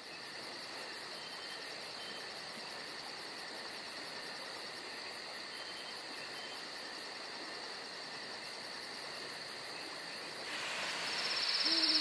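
Night insects trilling in a steady chorus: a continuous high-pitched buzz with a fast even pulsing above it, over a steady hiss. The whole sound grows louder about ten and a half seconds in.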